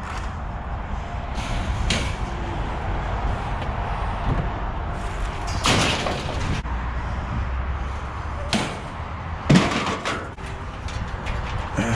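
A handful of loud bangs and slams at irregular intervals over a steady low rumble; the sharpest, loudest bang comes about two-thirds of the way through.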